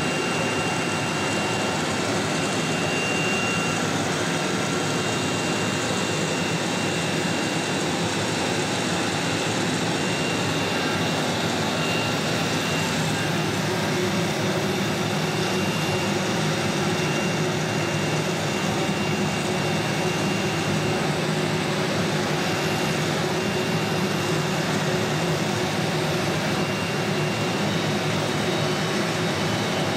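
Steady whir of running machinery: an even hiss with a few steady high whine tones, unchanging throughout.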